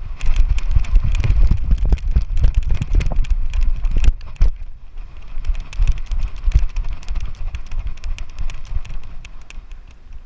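Rapid, irregular thumping footfalls and knocks with a low rumble: a Jack Russell terrier running during fetch, jostling the GoPro camera. The sound briefly eases about four and a half seconds in and fades near the end.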